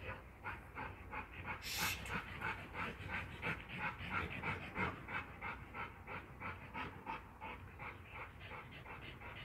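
Dog panting rapidly and steadily, about four breaths a second.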